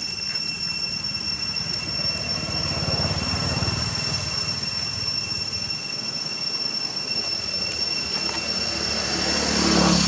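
Steady high-pitched insect drone held on two pitches, over a low rumble that swells a few seconds in and again, louder, near the end.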